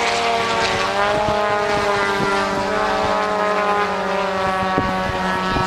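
Model aircraft engine running steadily with a propeller, its pitch sagging slightly about a second in and then holding.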